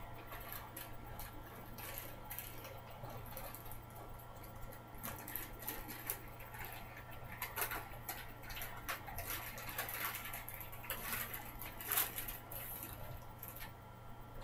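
Clear plastic packaging crinkling and rustling in irregular bursts as it is handled, with a sharper crackle about twelve seconds in, over a low steady hum.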